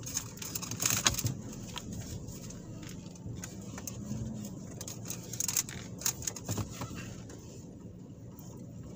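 Inside a car driving slowly: a steady low engine and road rumble, with a few light clicks and rattles about a second in and again around the middle.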